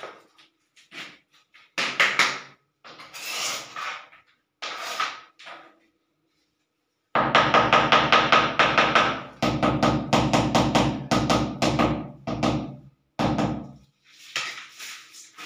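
A mallet tapping a ceramic wall tile to bed it into the mortar: a fast run of sharp taps, about six a second, starting about halfway through and stopping shortly before the end. Shorter scraping and knocking sounds come before it as the tile is pushed into place by hand.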